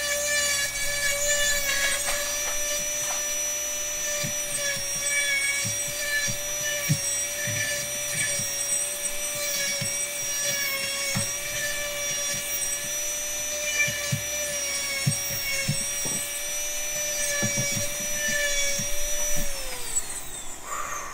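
Handheld electric rotary engraving tool whining steadily while its fine bit carves into a quartz stone, with light irregular ticks. Near the end the pitch falls as the motor winds down.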